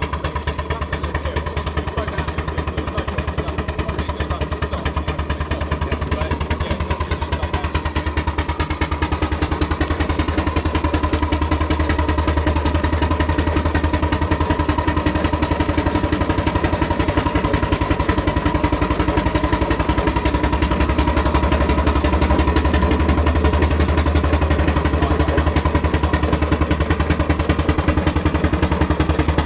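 Miniature steam traction engine driving along, its engine running with a rapid, even beat and its wheels rumbling over concrete, getting a little louder as it goes.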